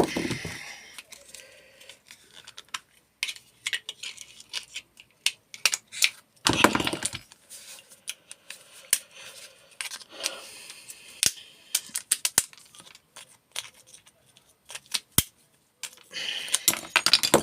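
Small metal parts of a microwave being pulled apart and handled by hand: scattered clicks, light metallic rattles and rustling, with a louder clatter about six and a half seconds in and again near the end.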